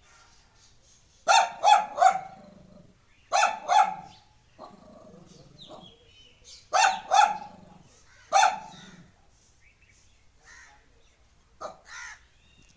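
A dog barking in groups of two or three short barks a few seconds apart, then a few fainter barks near the end.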